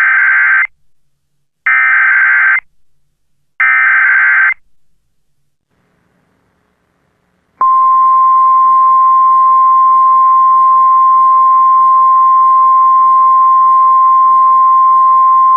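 Emergency Alert System SAME header: three loud bursts of digital data tones, each about a second long and a second apart. After a pause of a few seconds, a long, steady, single-pitched EAS attention tone begins.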